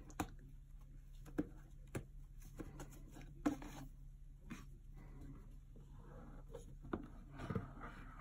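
Ribbon and cardboard gift box being handled: faint rustling as a satin ribbon is untied and slid off, with a few light taps and clicks against the box, and a short scuffing cluster near the end as the box is picked up.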